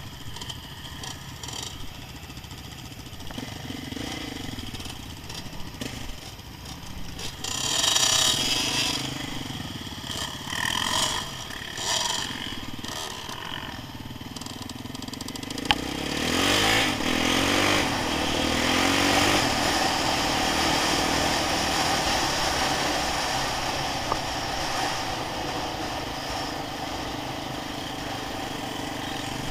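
Off-road engines of quad bikes and a dirt bike: a few short revs, then a rising rev about halfway through as the vehicles pull away, settling into a steady running sound as they ride along.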